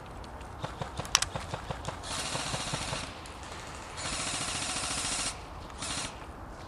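Airsoft guns firing: a few sharp single cracks about a second in, then two full-auto bursts of about a second each, and a short burst near the end.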